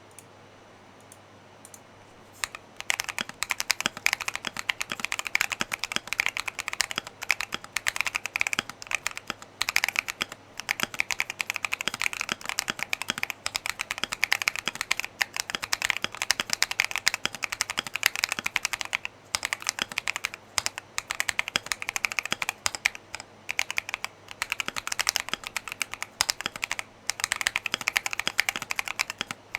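Continuous typing on a Keychron Q1 mechanical keyboard with AKKO Lavender Purple tactile switches and Retro 9009 PBT keycaps: a dense run of clacky keystrokes. A few faint clicks come first, and the steady typing starts about two and a half seconds in.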